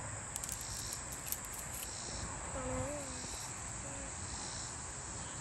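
Steady high-pitched chorus of insects, like crickets, buzzing without a break.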